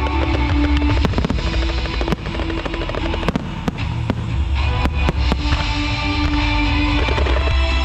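Aerial fireworks going off in repeated sharp bangs and crackles, over loud music with held notes and a heavy bass.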